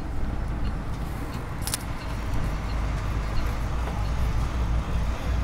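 The MaxxForce DT inline-six diesel of a 2009 International 3300 IC CE300 school bus running under way: a steady low rumble with road noise, heard from inside the bus. A faint regular tick comes about every two-thirds of a second, and there is a brief high hiss just under two seconds in.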